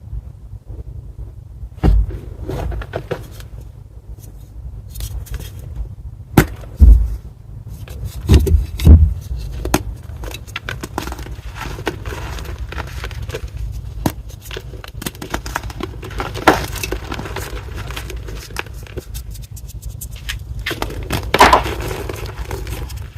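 Reformed gym chalk block being crushed: crumbling and crackling throughout, with several loud crunches as chunks give way.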